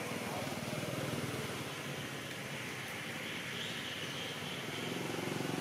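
Steady hum of a motor engine over a haze of outdoor noise, growing louder near the end.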